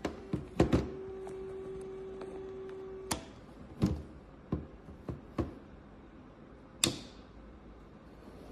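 Dropped Olympus OM-D E-M10 Mark III mirrorless camera making a few quick clicks, then a steady motor-like hum for about three seconds that ends with a click, followed by several separate clicks spaced about half a second to a second apart. The hum is the abnormal motor noise the camera has made since falling onto concrete.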